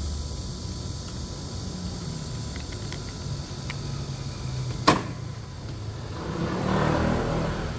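Two cats eating dry kibble from a plastic bowl, with faint crunching clicks, over a steady low rumble. One sharp click comes about five seconds in, and a rushing noise swells and fades near the end.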